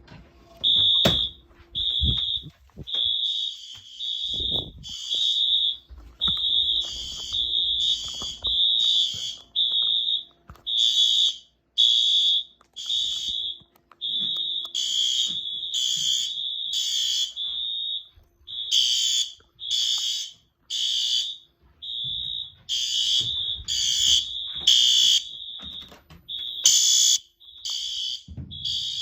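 Fire alarms sounding during a system test: at least two alarms beeping over each other out of step, a steady run of high-pitched beeps with a second, harsher beep in between.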